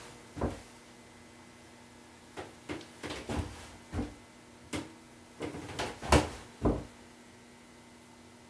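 Waxing iron knocking and bumping against a snowboard base and the workbench as it is worked along the board: about ten irregular clunks over the first seven seconds, the loudest near six seconds.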